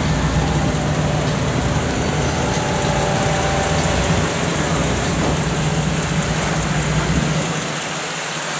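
Brabus G800's twin-turbo V12 idling steadily with a low rumble, which fades about a second before the end.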